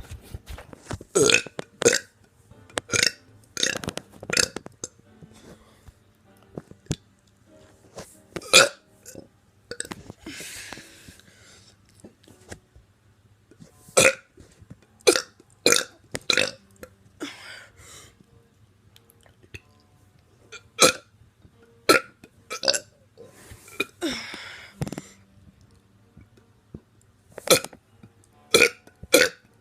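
A teenager burping over and over, about twenty separate short burps with pauses between them.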